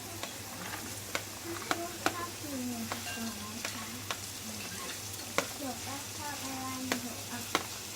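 Garlic and shallots frying in butter in a pan, sizzling steadily, with a spoon or spatula clicking against the pan every second or so as they are stirred.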